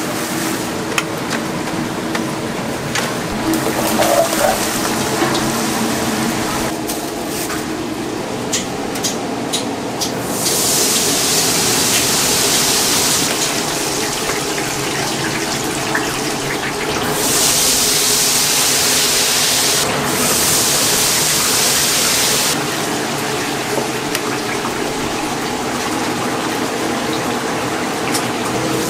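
Chicken deep-frying in a cauldron of hot oil: a steady sizzle that swells to loud hissing surges about ten seconds in and again from about seventeen to twenty-two seconds in, with a few light clicks before the first surge.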